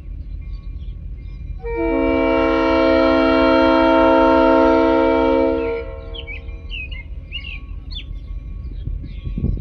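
Diesel locomotive air horn sounding one long blast of about four seconds, several notes at once, a warning at a road grade crossing. Birds chirp after it over a steady low rumble.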